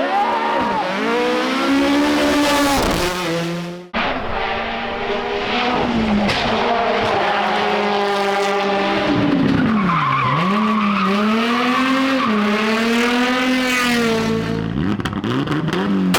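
Rally car engines revved hard on a special stage, the pitch climbing and dropping with each gear change and lift, with tyres squealing as the car slides. A sudden cut about four seconds in switches to another car doing the same.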